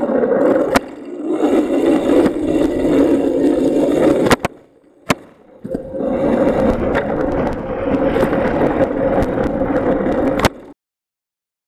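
Bicycle rolling over pavement, heard from a handlebar-mounted camera: a steady rumble of tyres and rattling with sharp knocks over bumps. It falls away for about a second midway, picks up again, and cuts off suddenly near the end.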